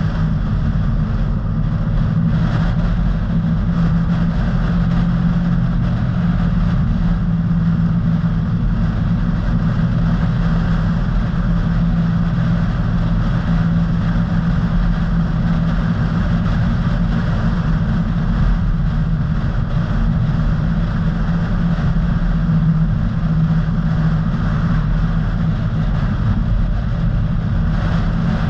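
A car driving along at a steady pace, heard from inside the cabin: a constant low engine and tyre rumble that does not change.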